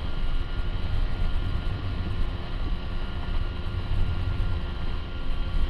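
Small fishing skiff running at speed: the motor drones steadily, mixed with the rush of water along the hull and a low rumble of wind on the microphone.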